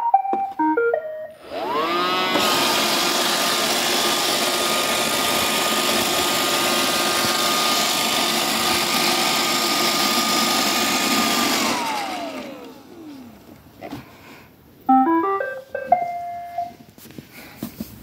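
iRobot Roomba 625 Pro robot vacuum beeps a short stepped tune as its button is pressed. Its vacuum motor then whines up and runs steadily with a rushing noise for about ten seconds before winding down with a falling whine. A few seconds later it plays another short beep tune as it settles on its charging dock.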